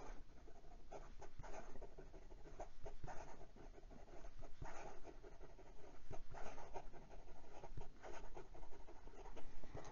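Vintage Sheaffer Student fountain pen's stiff medium steel nib scratching across notebook paper in quick, looping handwriting strokes, faint and irregular.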